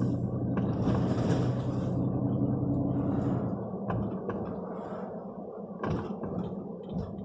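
A vehicle's engine running with a steady hum that drops away a little under four seconds in, followed by road rumble and a few sharp knocks and clicks.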